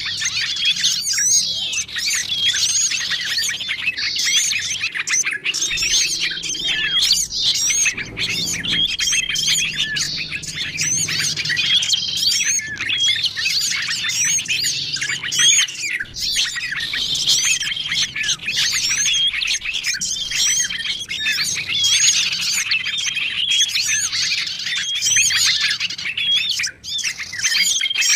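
Dense, busy chorus of many small songbirds chirping and twittering over one another, with short level whistled notes repeating every second or two: a bird-lure (pikat) mix of small wild birds calling.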